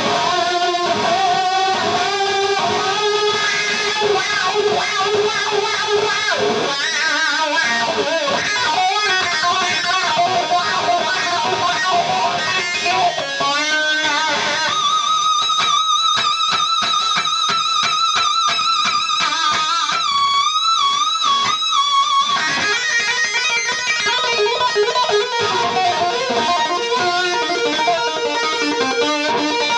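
Electric guitar played through an amplifier: quick runs of single notes, then about halfway a long held high note that is bent and shaken with vibrato for several seconds before the quick playing resumes.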